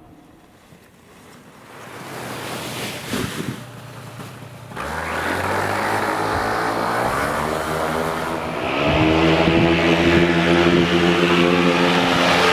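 Motor vehicle engine accelerating, its pitch climbing for a few seconds, then running steadily at a higher, louder pitch.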